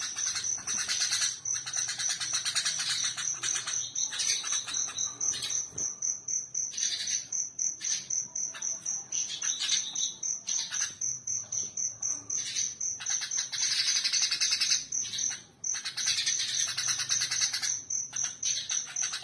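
Sooty-headed bulbul (kutilang) singing in fast, dense runs of chirps broken by short pauses, packed with tree-sparrow-like chirping phrases that it has been taught.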